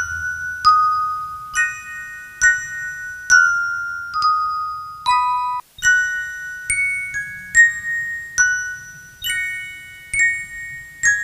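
Slow, gentle background music on bell-like mallet percussion: single high chiming notes struck about once a second, each ringing on and fading, with a brief pause about halfway through.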